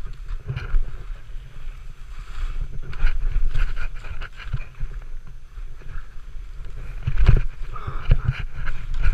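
Skis sliding and scraping over snow, with wind buffeting the microphone and scattered knocks, the loudest about seven seconds in.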